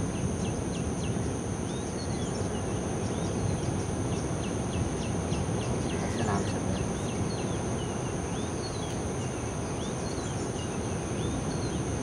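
Small birds chirping in the background, short high notes and quick runs of rapid notes scattered throughout, over a steady low rumble.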